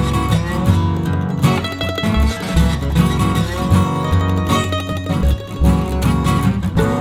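Background music led by plucked guitar, with a steady bass line.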